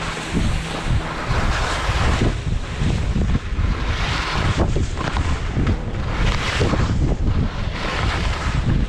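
Wind buffeting the microphone: a continuous rush with irregular gusty low rumbles.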